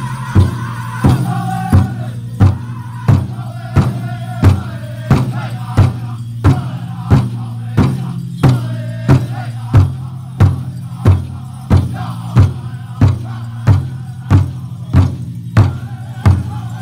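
Powwow drum group playing a chicken dance song: a large bass drum struck in a steady beat about one and a half times a second, with the singers' high voices carried over it.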